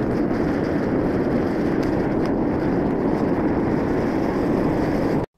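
Vevor 12 kg propane furnace burner running with a steady rushing flame noise while heating a crucible of aluminum cans, with a couple of faint clicks. The noise cuts off suddenly near the end.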